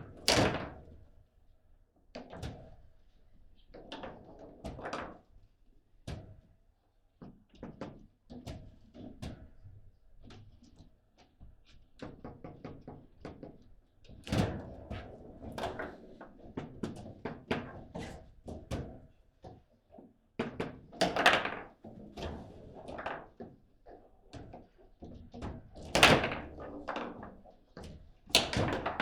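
Table football play: a steady run of irregular sharp clacks and knocks as the ball is struck by the rod-mounted figures and bounces off the table walls, with a few much louder bangs of hard hits, one just at the start and three in the last third.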